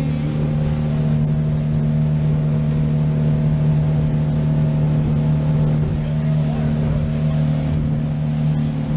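Outboard motor on a boat underway, running at a steady cruising speed with an unchanging hum, over the rush of wind and water.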